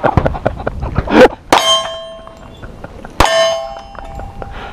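Two pistol shots about 1.7 s apart, each followed at once by a steel silhouette target ringing with a clear bell-like tone that fades over about a second: hits on steel.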